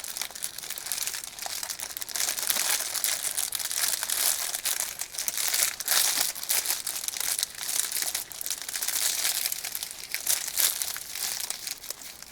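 Squishy-toy packaging crinkling and rustling in irregular bursts as it is handled and pulled open by hand.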